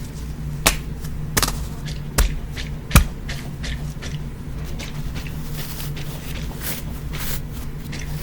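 Small objects being crushed or tapped by hand close to the microphone: four sharp cracks about three-quarters of a second apart, then softer crackling, over a low steady hum.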